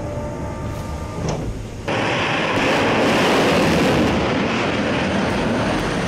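Jet aircraft in flight: a loud, steady rushing engine noise that starts suddenly about two seconds in, after a quieter low rumble.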